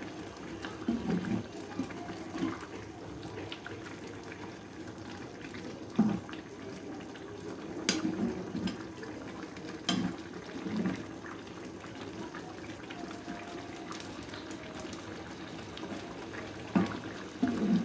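Thick curry liquid being stirred in a pan with a metal slotted spoon: irregular sloshing swishes and a few sharp clinks of the spoon against the pan, over a steady low hiss.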